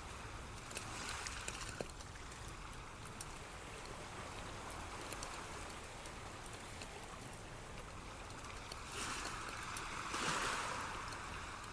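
Running water, like a stream, in a steady hiss with small scattered drips. It swells briefly about a second in and more strongly for about two seconds near the end.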